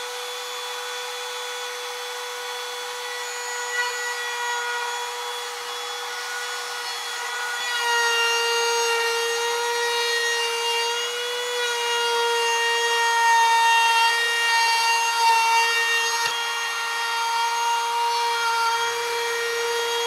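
Handheld router motor running at a steady high whine while its bit cuts a groove along the inside face of a wooden board. It gets louder about eight seconds in as the bit takes a heavier cut.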